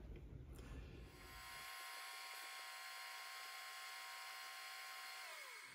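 Small metal lathe's motor and spindle running with a faint, steady whine, which drops in pitch near the end as the spindle slows.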